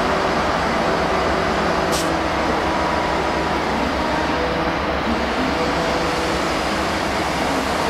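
Steady rumble and hiss of a train pulling out of the station, with faint steady tones running through it and a single sharp click about two seconds in.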